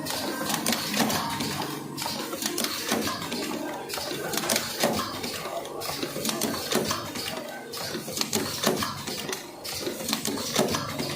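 Automatic cartoning machine running, its mechanism clicking and clattering quickly and steadily over a constant mechanical hum.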